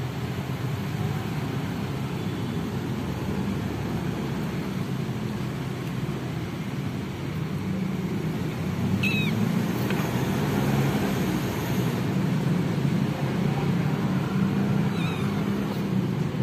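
Steady low rumble of engines and road traffic, a little louder in the second half. Over it a kitten gives a short high mew about nine seconds in, and a fainter one near the end.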